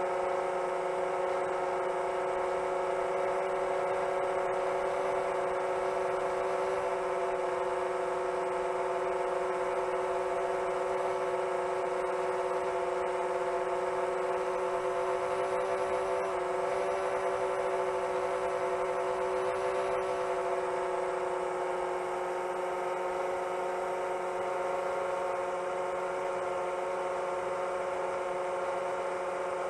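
Long-range 7-inch FPV quadcopter's brushless motors and propellers whirring steadily at cruise throttle, an unchanging multi-tone whine.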